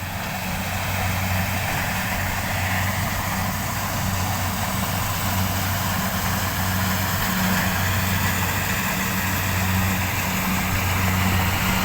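Rice combine harvester running steadily: an even engine hum under a wide mechanical rush.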